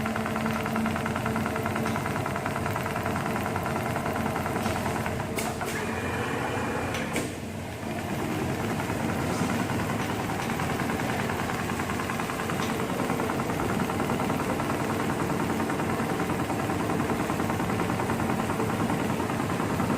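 Programmable pattern sewing machine (HEMS 250 CNC) running steadily, its needle stitching rapidly. A few sharp clicks come about five to seven seconds in, followed by a brief pause before the stitching resumes.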